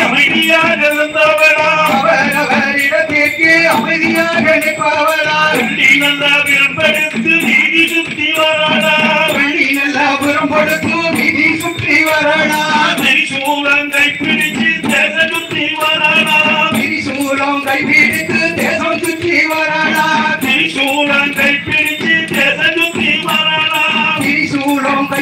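Music for a kummi folk dance: a Tamil folk song with a melody that bends and breaks like singing, carried over a steady rattling beat.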